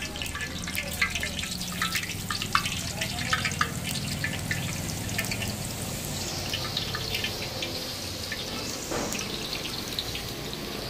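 Hot oil in a large iron kadai crackling and spitting in quick, irregular pops as battered egg halves for mutta bajji are dropped in to deep-fry. From about six seconds in the pops thin out into a steadier sizzling hiss as the fritters fry.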